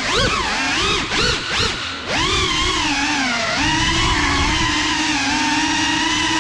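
Brushless motors of a GEPRC Cinelog35 ducted cinewhoop drone whining, the pitch swooping up and down quickly with the throttle and briefly dropping twice, then holding a steadier pitch for the last few seconds.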